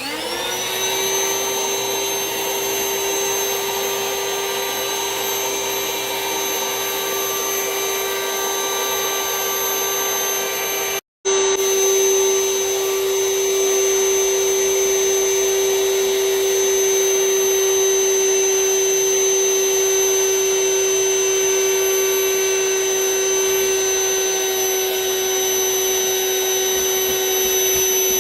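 Vacuum cleaner switched on and winding up to speed, then running steadily with a high whine, drawing the air out of a bag of plushies. The sound cuts out for a moment about eleven seconds in and comes back a little louder.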